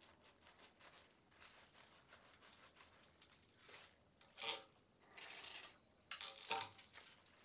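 Hands rubbing and squishing shampoo lather through long wet hair: a soft, continuous rubbing, with louder wet squelches and a longer rub in the second half.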